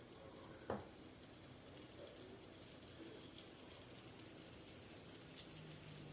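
Near silence: faint room tone, with one light knock less than a second in.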